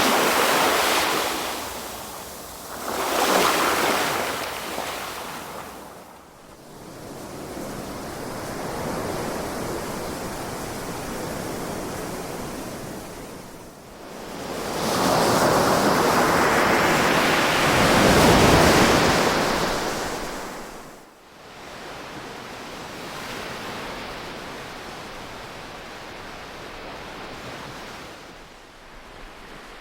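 Ocean waves breaking and washing in. Two surges come in the first few seconds and a longer, louder one about halfway through, with a softer steady wash between them.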